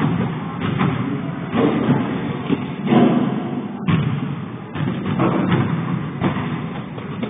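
Dull thuds of children jumping and landing on padded gymnastics mats, over the steady din of a busy gym.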